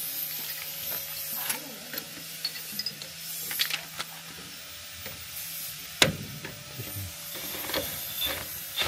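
Scattered clicks and light metallic knocks of tools and parts being handled in a workshop, with one sharp knock about six seconds in.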